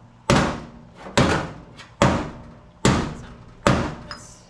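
Hammer blows on the dented sheet-metal front passenger side of a 1979 Ford F250, banging the dent out: five evenly spaced strikes a little under a second apart, each ringing out briefly.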